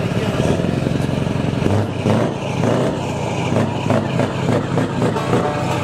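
Scania V8 diesel truck engine running through its loud side-exit exhaust, the level rising and falling.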